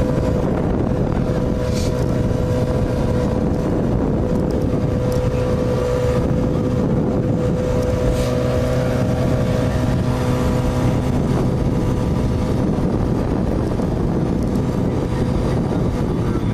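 Chevrolet Corvette C8 Z06's 5.5-litre flat-plane-crank V8 idling steadily through its centre quad exhaust.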